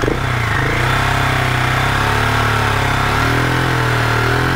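GasGas SM700 single-cylinder engine revved off idle, its pitch rising at the start and then swelling up and down twice, with a steady whine over the engine note, something between whistling and grinding. The whine is the noise under suspicion; it proved normal, made louder by a metal skid plate under the engine.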